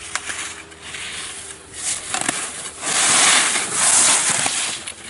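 Slalom skis carving turns on spring snow: the edges scrape and hiss in surges, one per turn, loudest about three to four and a half seconds in as the skier passes close by. A few short clicks come early on.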